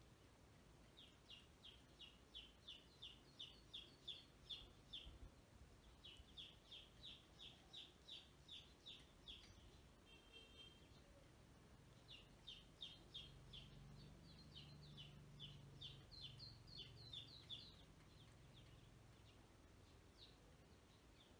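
Faint peeping of a group of ducklings: runs of quick, evenly repeated high peeps, about three a second, with a short break a little before halfway.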